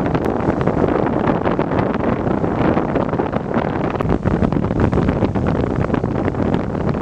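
Strong wind buffeting the microphone in a dense, steady rumble with crackles, over the noise of surf.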